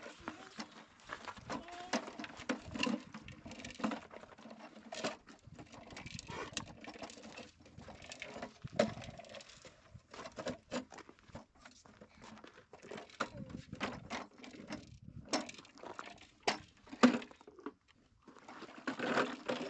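A run of irregular light knocks, taps and clatter, loudest in a few sharp knocks in the second half.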